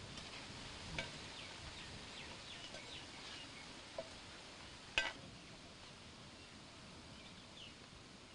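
Faint outdoor ambience with small birds chirping in short falling calls through the first few seconds, and a few sharp knocks about one, four and five seconds in, the last the loudest.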